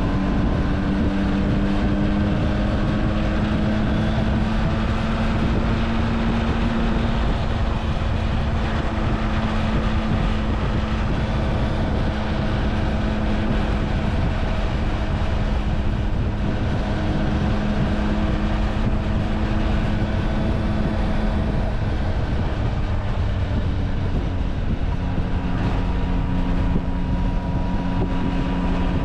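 Motorcycle engine cruising at a steady road speed of about 50 to 60 mph, with a constant rush of wind and road noise, heard from on the bike. The engine note holds nearly steady, with small shifts in pitch.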